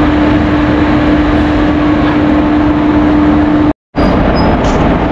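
Electric locomotive standing while it is uncoupled from the train, giving a loud, steady mechanical noise with a steady hum. The sound cuts out for a moment about three and a half seconds in; after that the hum is gone and the steady noise goes on.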